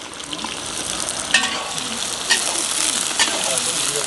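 Sliced onions frying in hot oil in a deep black pan: a steady sizzle that swells over the first second, with a few sharp crackles.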